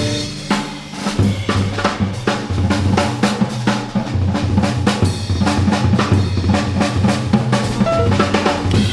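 Jazz drum kit playing a busy passage on snare and bass drum, with the double bass continuing underneath and the piano mostly dropped out, as in a drum feature within a piano trio number.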